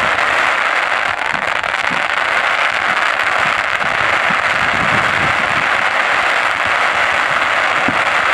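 Fireworks crackling densely and without a break, a steady sizzling crackle like crackling-star effects, with a few faint low thuds underneath.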